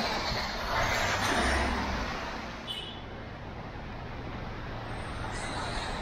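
City street traffic on a rain-wet road: a vehicle's tyres hiss past in the first two seconds, then the noise settles to a quieter steady traffic hum.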